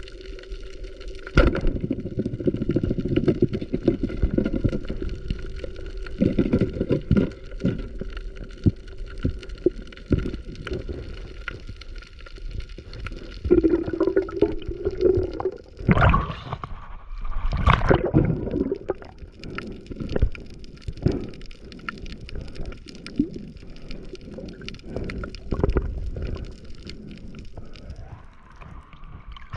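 Water gurgling and sloshing against the microphone, with irregular crackles and louder surges about 16 and 18 seconds in, over a steady motor hum.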